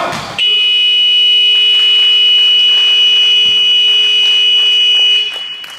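Basketball scoreboard buzzer sounding the end of the second quarter: one long, steady, high-pitched electronic tone lasting about five seconds, starting just under half a second in and cutting off sharply.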